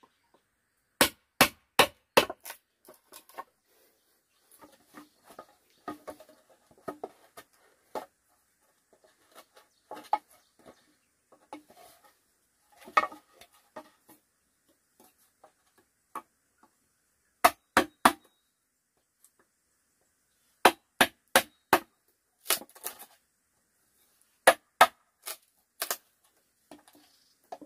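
A tool striking bamboo in quick sharp blows, in runs of three or four strikes about two or three a second, with quieter knocking and handling of the bamboo in the long gap between runs.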